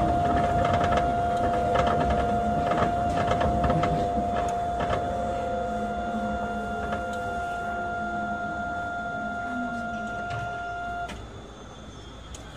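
Astram Line 6000-series rubber-tyred automated guideway train heard from inside the car as it slows down. The drive's whine falls steadily in pitch over a constant electrical tone and a higher one, with rattles and knocks at first. The tones cut off suddenly about eleven seconds in as the train comes to a stop.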